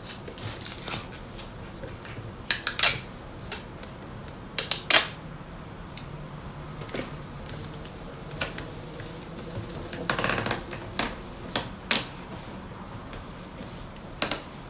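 Packing tape being pulled off its roll in short, loud rips and pressed onto a cardboard box, with a longer pull of tape about ten seconds in.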